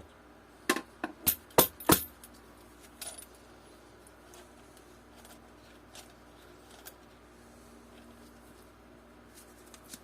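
Sharp metallic clinks of small hardware such as nuts and washers being handled, about five in quick succession in the first two seconds, then a few faint ticks.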